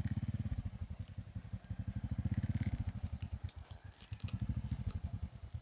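Small motorcycle engine running at low speed, a steady fast low putter of firing pulses. It eases off briefly about four seconds in and picks up again near the end.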